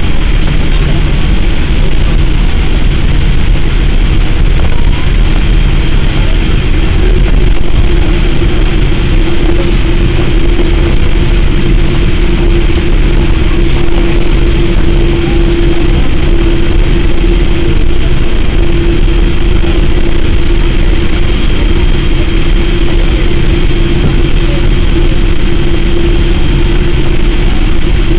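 Boeing 787-8 Dreamliner cabin noise by the wing: jet engines running and the aircraft rumbling along the runway for takeoff. It is loud and steady throughout, with a steady hum that grows stronger about a third of the way in.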